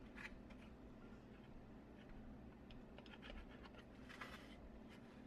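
Faint handling sounds of a large 3D-printed plastic part: scattered small clicks and taps, with a brief soft scrape about four seconds in.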